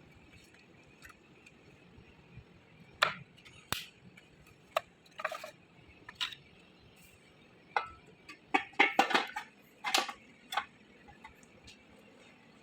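Irregular light clicks and knocks of small hard objects, scattered at first, then a quick cluster of them about eight to ten and a half seconds in.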